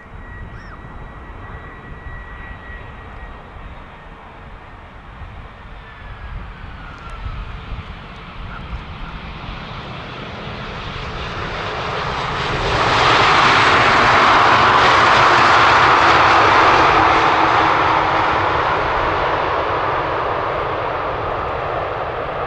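Jet engines of a large airliner on landing approach flying low past: the noise builds over about ten seconds, becomes loud suddenly, holds for a few seconds, then fades slowly as the pitch drops.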